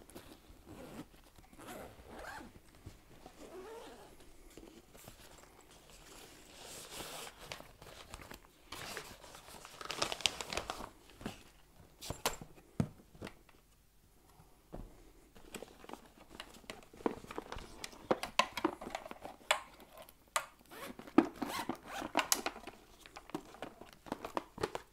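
Backpack and inner bags being unzipped in a hurry, with rasping zipper runs, rustling of fabric and sharp clicks as plastic boxes are pulled out and opened.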